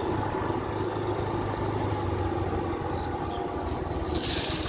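A motorcycle engine running steadily with a low hum. A hiss joins in near the end.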